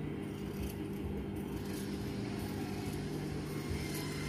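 A steady low hum throughout, with large tailoring scissors cutting through layered cotton blouse fabric along the neckline.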